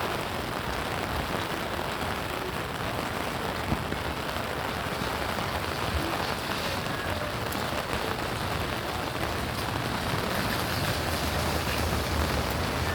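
Steady rain falling and pattering on surfaces, with one brief louder tick about four seconds in.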